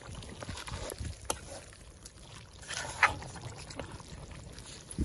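Chicken and chorizo stew bubbling at a simmer in a cast-iron camp oven, with scattered small clicks and one sharper clink about three seconds in.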